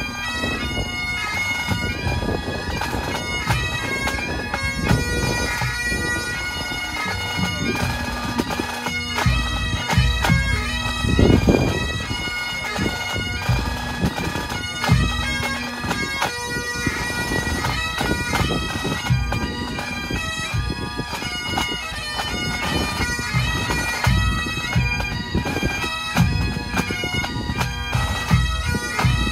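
Pipe band playing: Great Highland bagpipes sounding a melody over a steady drone, with snare, tenor and bass drums keeping time.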